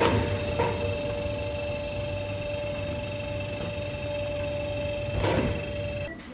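Conveyor belt machinery running: a steady low hum with a steady whine over it, and a few knocks. It cuts off suddenly near the end.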